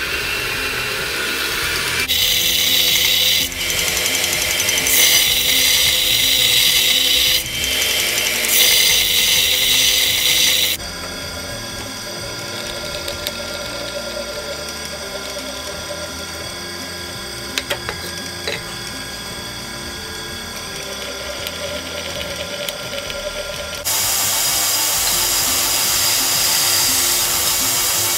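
Workshop power tools working steel: a motor spins up, then a loud grinding hiss cuts out twice. A drill press then runs with a steady whirr and a few clicks as it bores holes in a karambit's steel handle tang to lighten it. Near the end a belt grinder grinds the curved blade's bevel with a loud hiss.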